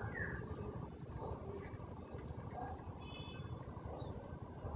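An insect's high buzzing trill starts about a second in and runs for nearly two seconds, over a steady low rumble.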